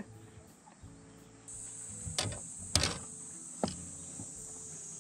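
Insects buzzing steadily at a high pitch, starting abruptly about a second and a half in, with three sharp knocks or clicks in the middle, the second the loudest.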